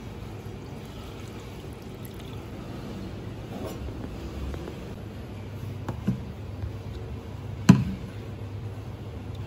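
Thick sauce poured over a plated braised pork hock, over a steady low hum. Later come a few knocks as a rice paddle scoops cooked rice in an electric rice cooker's inner pot, the loudest a single sharp clack just before the end.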